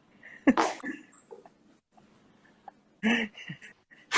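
A man's fart: one short burst about half a second in. A brief voice sound follows near three seconds in.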